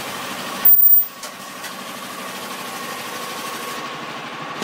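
Ultrasonic welding machine for kitchen sponges humming steadily, with one brief, very high-pitched screech about two-thirds of a second in, lasting about a third of a second, as the welding horn fires.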